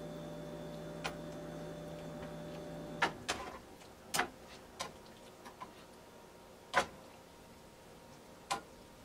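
Slotted spatula knocking and scraping against a skillet while stirring noodles in a creamy sauce: a string of sharp, uneven taps, the loudest about a third and two thirds of the way in. A steady background hum stops about three seconds in.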